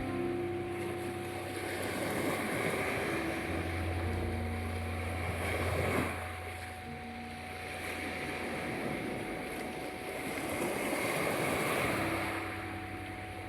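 Sea waves washing ashore in slow swells, under soft held music notes and a steady 741 Hz tone.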